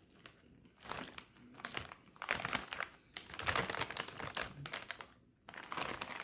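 Sun Chips bag crinkling in several bursts of rustling as a hand rummages in it for more chips.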